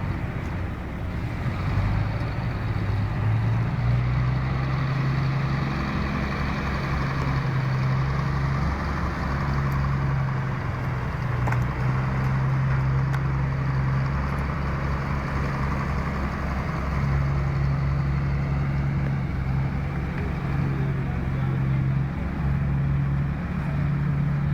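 An engine running steadily, with a low hum that drops out briefly several times over a steady rushing noise.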